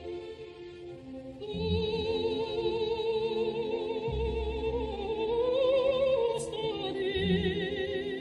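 Background music: a sung voice holding long notes with a wide vibrato, coming in about a second and a half in over a sustained backing, with a few deep low hits underneath.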